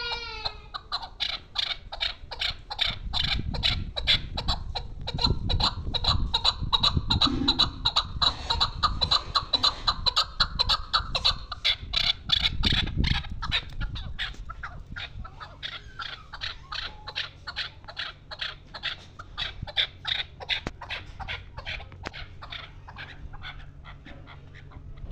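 Female chukar partridge calling: a long, continuous run of quick clucking 'chuk' notes, several a second, easing off in loudness through the second half. A low rumble lies under the first half.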